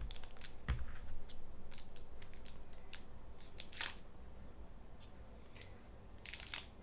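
Rustling and crinkling of a foil Pokémon booster-pack wrapper and trading cards being handled, in short irregular crackles with a low knock near the start.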